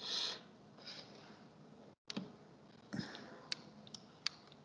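A quiet breath in near the start, then a few sharp computer-mouse clicks in the last second and a half, over faint hiss.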